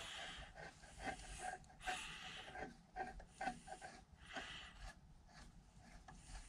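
Faint clicks and scrapes of a flat-blade screwdriver working the chip guard screws on a cast-iron lathe cross slide, in short scattered bursts.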